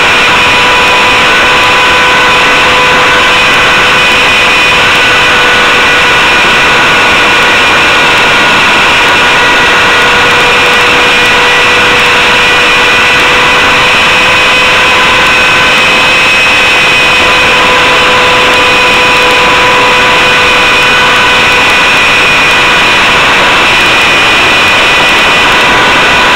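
Align T-Rex RC helicopter's motor and rotor heard from its on-board camera: a loud, steady high-pitched whine over heavy rushing noise, its pitch drifting only slightly.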